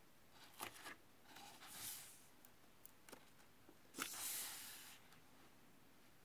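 Pages of a paperback book being turned and smoothed by hand: a few short paper rustles and light taps, the loudest about four seconds in.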